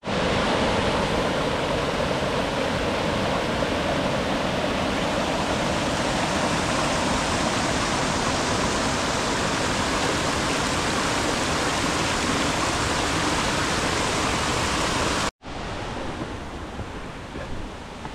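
Steady, loud rush of water from a cascading mountain stream. It cuts off sharply about fifteen seconds in, and a quieter rush of water follows.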